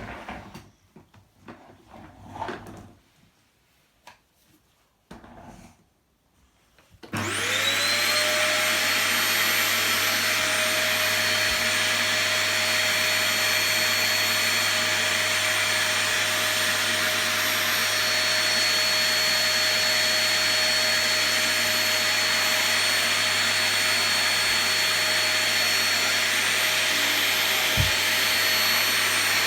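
Cheap 'Epic' vacuum cleaner switched on about seven seconds in: its motor whines up to speed and then runs steadily. Before it starts there are only a few soft knocks.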